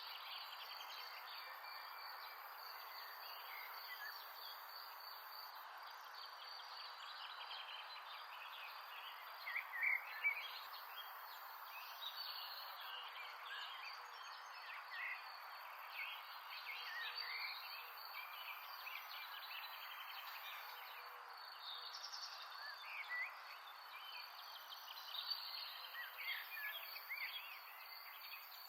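Outdoor nature ambience: many short bird chirps scattered throughout over a steady insect trill and a soft steady hiss.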